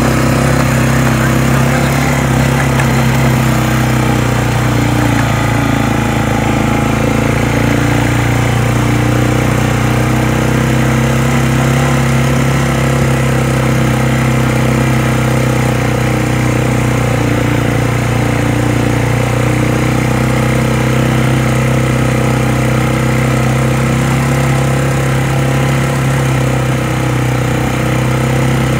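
ATV engine running at a steady, even speed while the quad is ridden along a gravel road.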